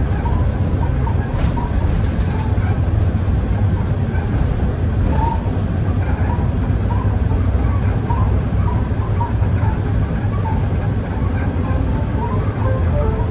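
Mercedes-Benz Citaro facelift city bus running: a steady low rumble of engine and road noise.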